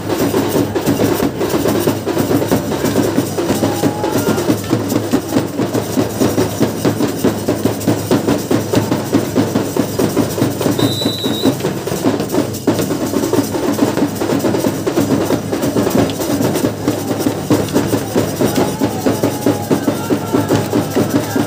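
Drums beating a fast, steady rhythm without pause, in the manner of the folk drumming that accompanies lathi khela stick fighting.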